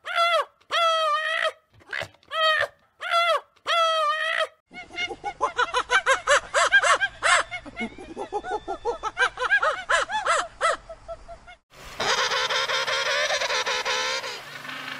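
Goat bleating in a run of short repeated calls, then about seven seconds of rapid, chattering bird calls, and near the end a dense, unbroken chorus of many calls at once.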